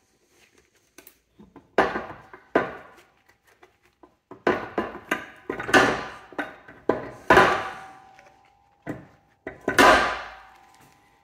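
Steel gears and the differential assembly of a Mercedes G W463 transfer case clanking and knocking against each other and the case as the differential is turned by hand and lifted out. A string of sharp metal knocks, two of them near the end leaving a short ringing tone.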